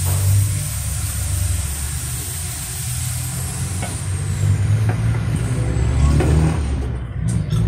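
A steady low rumble with hiss over it, the hiss thinning out near the end, and a few light knocks as a steel wok is handled while used cooking oil is poured from it into a bottle and the wok is set back on the gas stove.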